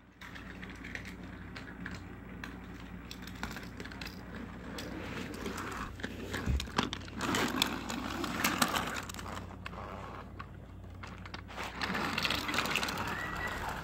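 Handling noise: irregular rustling and light knocks as the phone and plastic toy trains are moved about over plastic track.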